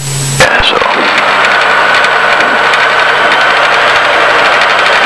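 Cockpit noise of a Diamond DA40 light aircraft on final approach: the steady drone of engine, propeller and airflow through the cabin, with a faint steady whine. A short burst of hiss cuts off with a click in the first half-second.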